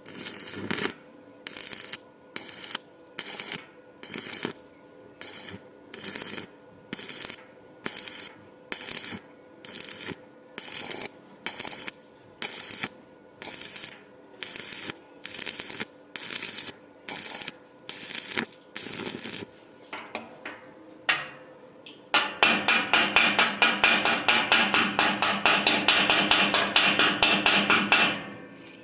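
Arc welding on square steel pipe: short bursts of arc in a steady rhythm, about two a second, then from about 22 s a continuous crackling run of rapid ticks that cuts off near the end.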